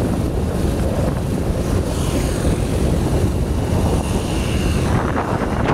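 Wind rushing over the microphone with the steady rumble of a vehicle travelling at road speed.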